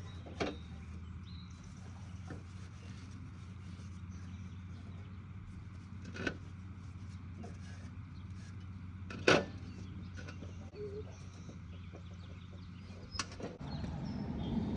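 A few separate knocks and clicks of tools and parts being handled on a riding mower deck during belt replacement, the loudest about nine seconds in, over a steady low hum that stops near the end.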